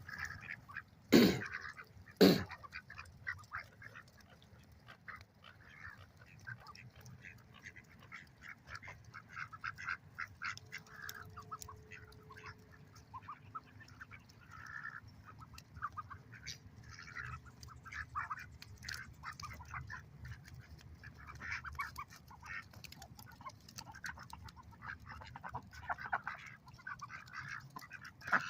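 A flock of ducks quacking continuously, many short calls overlapping. Two loud knocks stand out about a second and two seconds in.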